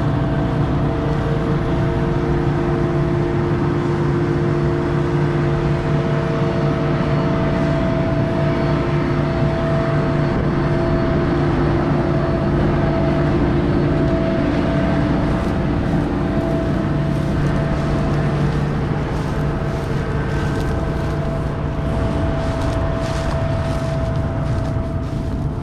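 Big John Deere tractor's diesel engine running steadily, a constant hum with several held tones. Light clicks and rattles come in over the second half.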